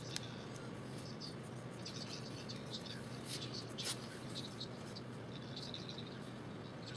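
Pencil scratching on sketchbook paper in short, irregular strokes, over a steady background hum and hiss.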